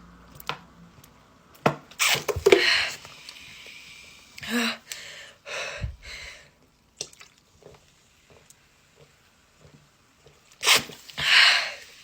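A person chugging a carbonated soft drink, with sharp gasping breaths and exhales between swigs; the loudest come about two seconds in and near the end.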